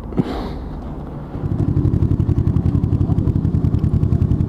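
Kawasaki ER-6n parallel-twin motorcycle engine. About a second and a half in it sets in abruptly and idles with a rapid, even pulsing beat.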